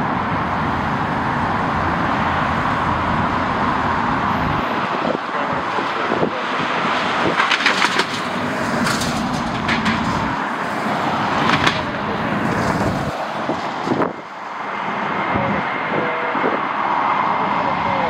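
Storm-force wind gusting across the microphone: a steady rushing noise with a low rumble that swells and drops out several times.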